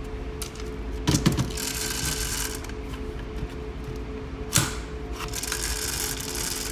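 Shelled corn kernels rattling and pouring while a grain moisture tester's cup is filled, with a loud knock about a second in and another past the middle. A steady hum of running grain-handling machinery lies underneath.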